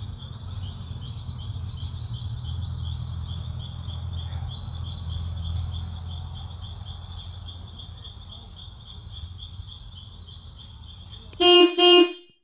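Crickets chirping in a steady, finely pulsing high trill over a low rumble. Near the end the trill cuts off and a short electronic jingle sounds.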